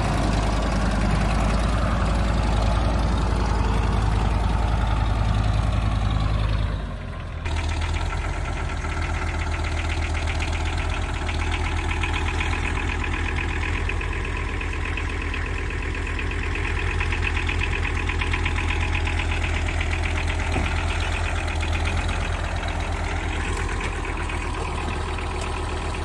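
Kubota M5400 tractor's diesel engine running steadily. About seven seconds in, the sound dips briefly, and the engine then carries on with an even, pulsing note.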